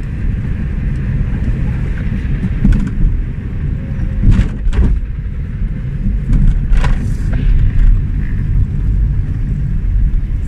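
Steady low rumble of a car's engine and tyres, heard from inside the cabin while driving slowly, with a few brief knocks about four to five seconds in and again near seven seconds.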